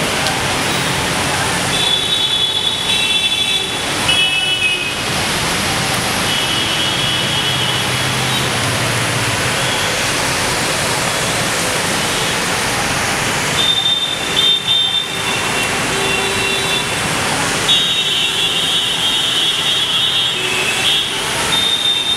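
Steady rain and traffic on a wet city street, with the hiss of rain and tyres and vehicle horns honking again and again in short blasts.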